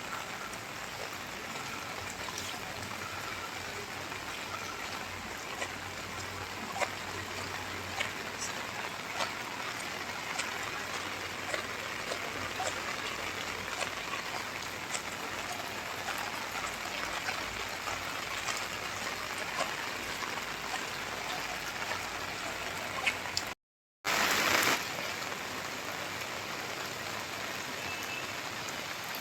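Steady rain falling, with many individual drops ticking on hard surfaces over an even hiss. Near the end the sound cuts out for a split second, then comes back as a louder rush for about a second before settling again.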